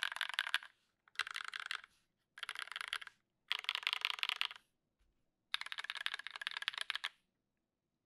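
Typing on a Square80 mechanical keyboard fitted with lubed Cream-stem switches in Gateron Yellow milky housings, GMK keycaps and a 4 mm aluminium plate, with no sound dampening. It comes as five short bursts of rapid key clacks and stops about seven seconds in.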